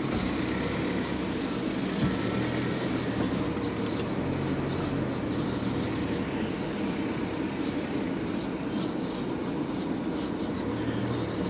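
Car engine running at low speed with a steady low hum and road noise, heard from inside the cabin.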